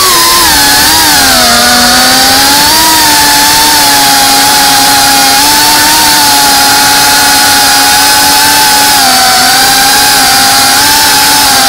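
FPV quadcopter's brushless motors and propellers whining loudly, heard from on board. The pitch drops in the first second or so, then holds fairly steady with small rises and falls as the throttle changes.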